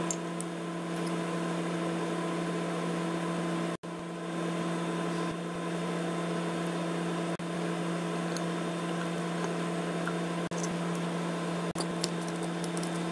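A steady hum made of several evenly spaced tones, cutting out for an instant a few times, with a few faint light clicks of the aluminium thermostat housing and its bolts being handled.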